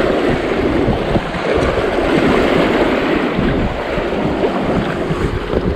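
Rushing water of a creek rapid splashing steadily around a kayak, with wind rumbling on the microphone.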